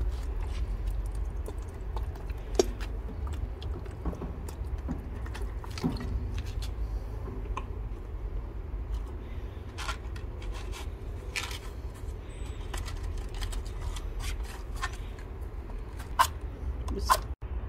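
Charcoal briquettes being handled and shifted in the firebox of a metal barbecue grill: scattered clicks and scrapes, with a few sharper knocks near the end, over a steady low rumble.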